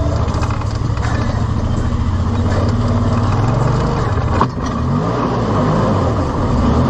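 A motor vehicle engine running, its pitch rising and falling, with a single sharp click about four and a half seconds in.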